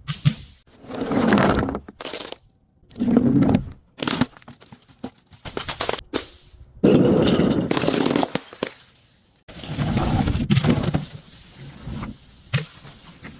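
Brittle objects being crushed: repeated cracking and crunching in several separate bouts, with sharp snaps in between.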